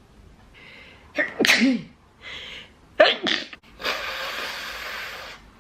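A person sneezing twice, each sneeze after a short in-breath, about a second and a half apart. Then one long, steady nose blow.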